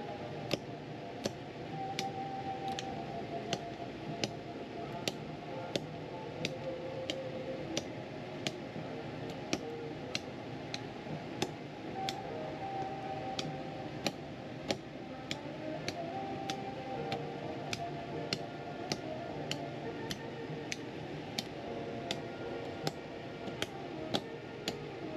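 Background music with a soft melody and a steady ticking beat, about two ticks a second.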